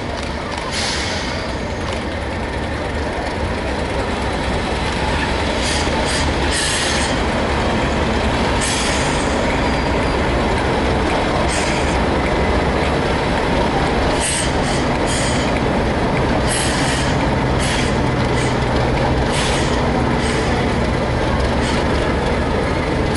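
Two Class 37 diesel locomotives running in past the platform, their English Electric V12 engines running under a steady low hum that grows louder over the first few seconds as they draw near. Repeated short high-pitched wheel squeals cut in over the engine noise throughout.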